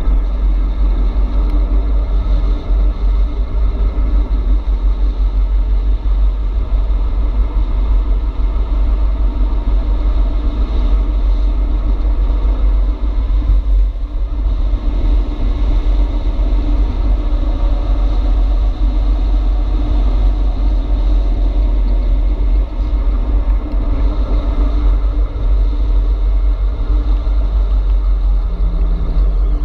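Wind buffeting the microphone of an action camera on a moving e-bike: a steady, loud low rumble with a rushing hiss above it, likely mixed with tyre noise on the asphalt.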